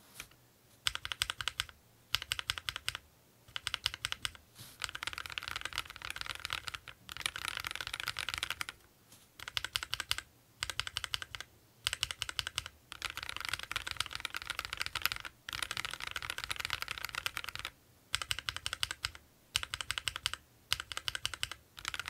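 Mechanical keyboard fitted with Akko Jelly White linear switches (35 g) being typed on: rapid runs of key strokes in bursts of a second or two, with short pauses between.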